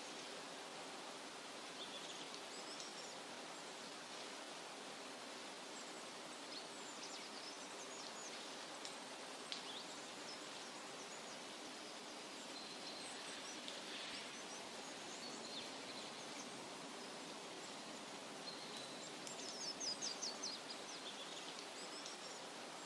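Forest nature ambience: a steady soft hiss with birds chirping here and there, and a quick run of chirps near the end.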